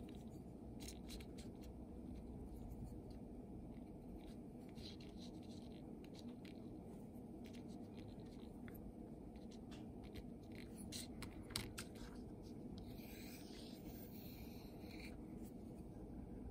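Pencil tip tapping and scratching dots on paper: scattered small clicks, with a stretch of scratchy rubbing about two-thirds of the way through. A steady low hum runs underneath.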